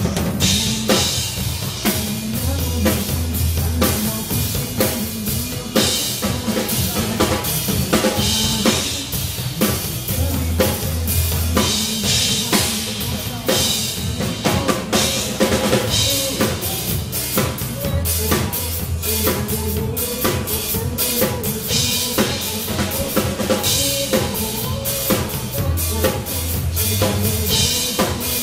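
Drum kit played live along with a pop backing track: kick drum, snare and cymbal strokes over bass and melody.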